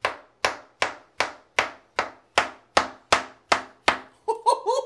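Kitchen knife chopping through a peeled banana onto a cutting board: eleven sharp, evenly spaced knocks, about two and a half a second. A voice starts near the end.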